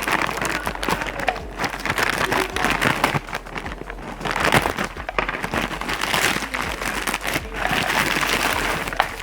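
Plastic parcel packaging crinkling and rustling as it is handled and pulled open by hand, in irregular crackly bursts.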